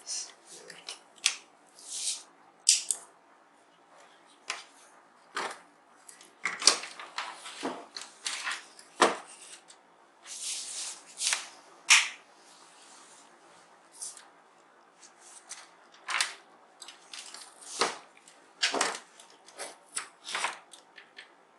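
Irregular small clicks, taps and rustles of hands working on the opened keyboard, plugging in connectors and the power adapter. No musical notes sound.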